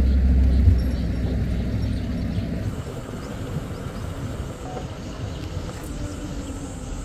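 Safari vehicle driving along a forest track: engine and road rumble with a knock about a second in, then growing quieter as it slows.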